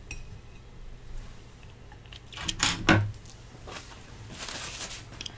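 A few light knocks and clatters of things being handled on a table, about two and a half to three seconds in, then a brief rustle.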